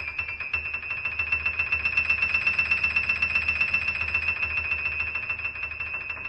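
Background music: a high sustained tone pulsing rapidly over a low steady bass.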